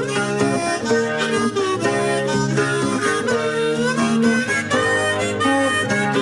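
Instrumental break in an Irish folk ballad: harmonica playing the melody over strummed acoustic guitar.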